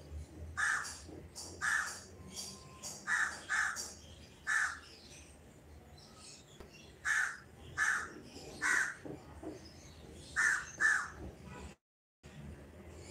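Crows cawing outside, about ten short harsh caws spaced roughly a second apart, some in quick pairs.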